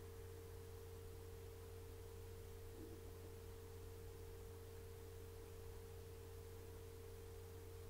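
Faint, steady, unchanging pure tone held at a middle pitch, over a low hum.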